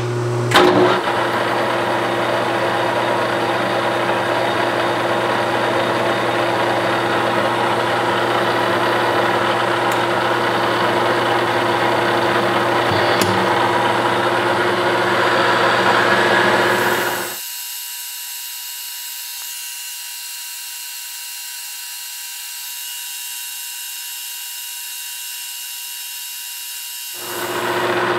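Metal lathe running steadily while a boring bar takes the final finishing pass inside the bore of a coupler held in a four-jaw chuck. About 17 seconds in the sound drops and turns thin, losing its low hum, until shortly before the end, when the full sound returns.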